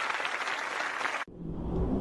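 Many hands clapping in applause, cut off abruptly just past halfway. A low rumbling sound with a steady low hum then fades in.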